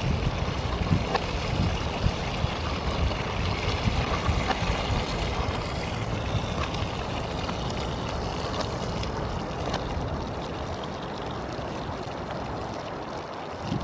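Steady hiss of a canister gas stove burning under a pan of frying burgers, with a few light taps and scrapes of a spatula in the pan in the first few seconds.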